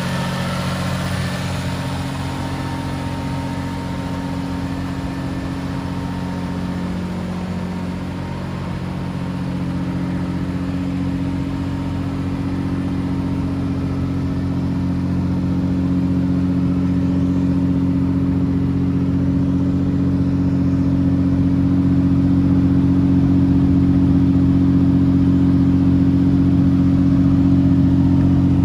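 Jaguar XK120's 3.4-litre straight-six engine idling steadily, growing gradually louder toward the end.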